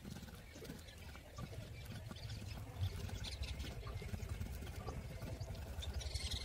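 Stone muller (batta) rubbed back and forth on a flat grinding stone (sil), crushing whole red chillies into a wet paste: a continuous low scraping with small gritty clicks.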